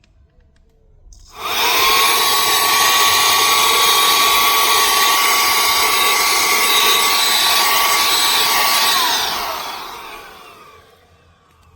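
EBOSSOM cordless handheld vacuum cleaner switched on, its motor spinning up quickly to a loud, steady whine. It runs for about seven seconds, then is switched off and winds down over a couple of seconds.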